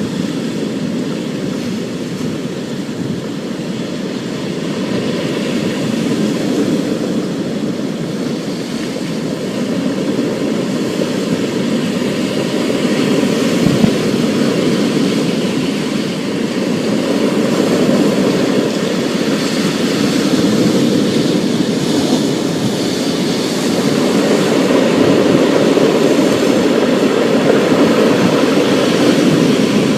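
Rainstorm ambience: a steady low rumble of rain and storm noise that slowly swells louder.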